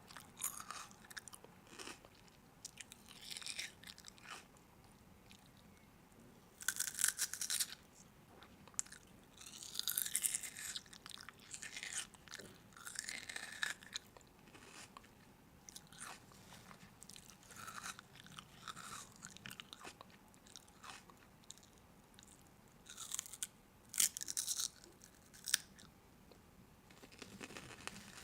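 A person chewing and crunching crisp food close to the microphone, in irregular bursts of crackling bites with short pauses between.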